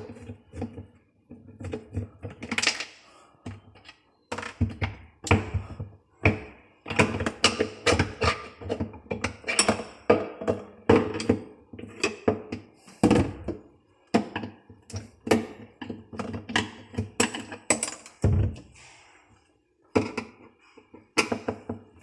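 Hands working inside a refrigerator to take out its evaporator fan cover: a long, irregular run of knocks, clicks and thunks on the fridge's plastic parts, several a second, with a few short pauses and one heavier low thump near the end.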